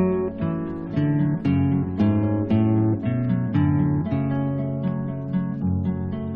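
Background music played on acoustic guitar, plucked notes and chords at a moderate pace.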